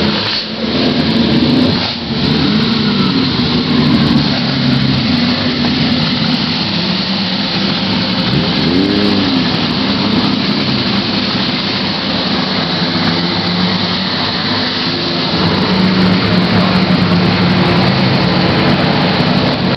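Race car engines running at low speed as several cars roll slowly past, the pitch rising and falling briefly a few times as throttles are blipped.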